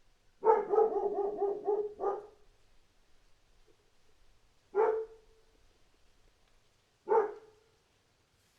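A dog barking: a rapid run of about eight barks over a second and a half, then two single barks a little over two seconds apart.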